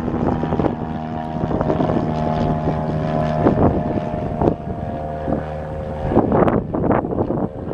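1997 Cessna 172R Skyhawk's four-cylinder Lycoming engine and propeller droning steadily at climb power just after takeoff. About six seconds in, wind gusts buffet the microphone.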